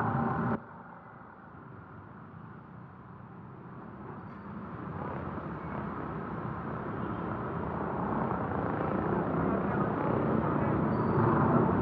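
A motor vehicle's engine and road noise, growing steadily louder as it approaches, after an abrupt drop in sound about half a second in.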